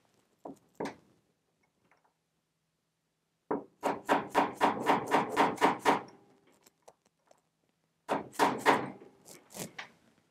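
Mallet striking a flat-tip cold chisel to bend the lock-washer tab against a motorcycle's front sprocket nut, so the nut can't back off. A couple of single taps, then a quick run of about a dozen sharp strikes, a pause, and another quick run of strikes near the end.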